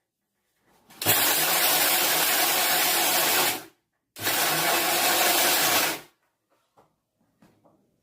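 Electric mixer grinder (mixie) run in two pulses, about two and a half seconds then about two seconds, each starting and stopping abruptly. It is grinding dry spices and palm sugar candy into powder.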